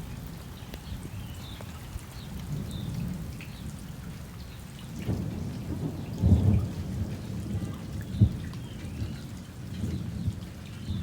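Rain falling with low rolling thunder, swelling to its loudest rumble about six seconds in, with a sharp low knock of thunder just after eight seconds.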